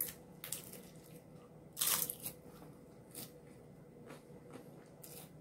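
Person biting into and chewing a crunchy hard-shell taco close to the microphone: a few sharp crunches, the loudest just under two seconds in.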